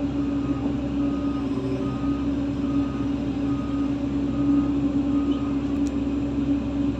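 Heavy diesel machinery engine running steadily, with a reversing alarm beeping about once a second.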